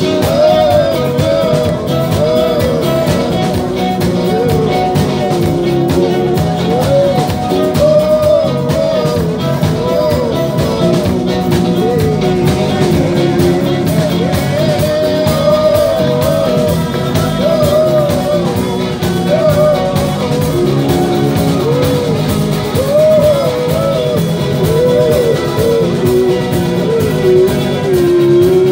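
Live band playing: acoustic and electric guitars, electric bass and bowed cello together, with a wavering melody line above the accompaniment.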